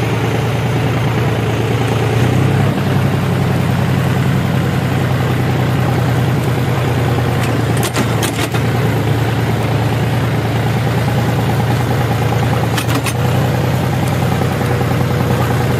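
Tractor engine running steadily at a constant speed under load, with a few sharp clicks about halfway through and near the end.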